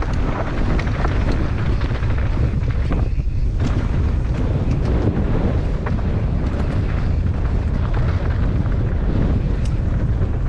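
Wind buffeting a helmet-mounted camera microphone on a fast downhill mountain-bike descent, with a constant clatter of tyres and bike over dry, rough dirt track. The rattle eases briefly about three seconds in.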